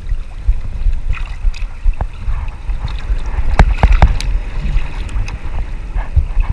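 Wind rumbling on the microphone over moving seawater, with a few sharp knocks about two seconds in and again near four seconds.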